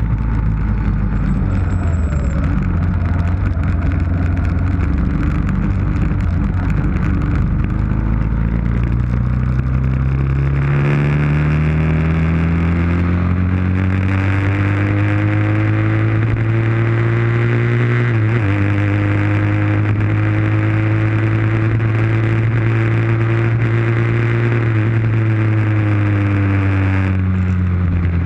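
Motorcycle engine under way with wind rush on the camera's microphone. For about the first ten seconds the sound is mostly wind and low rumble. Then the engine note comes up and climbs steadily, with a brief hitch about eighteen seconds in. It then holds and falls away near the end.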